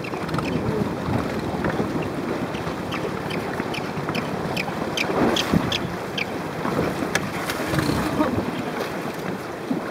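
Wind buffeting the microphone over choppy sea water lapping, with a run of light ticks about three to six seconds in.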